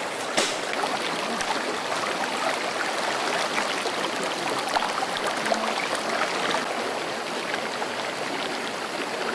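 Shallow river water rushing and splashing around people wading and ducking under the surface, with many small splashes and ticks. There is one sharp tap about half a second in.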